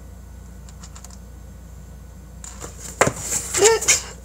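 Cardboard mug-cake box and its packaging being handled: a sharp knock about three seconds in among clicks and crackling rustles, after a stretch of steady low hum.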